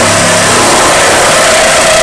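Cordless power tool running under load, cutting into the rusty sheet steel of a 1954 Chevy Bel Air's rear body. A loud, steady motor whine over a harsh hiss, the tone settling lower about a second in.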